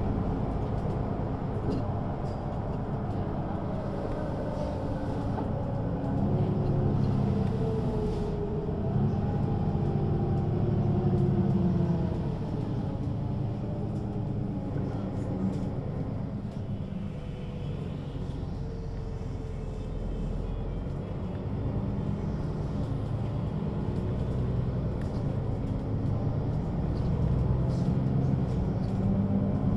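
Mercedes-Benz O 530 G Citaro G articulated bus heard from inside the passenger cabin: its diesel engine and ZF automatic gearbox running under way, the pitch rising and falling several times as the bus accelerates and eases off. The engine is loudest about a quarter and again near the end.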